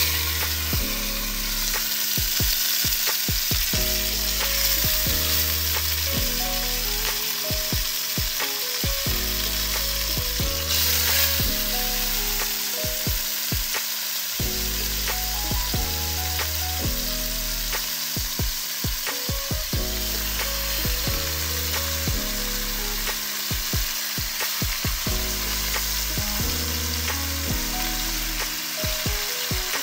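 Seasoned oxtails searing in hot oil in a pot, a steady, fairly loud sizzle. Background music with a repeating bass line plays underneath.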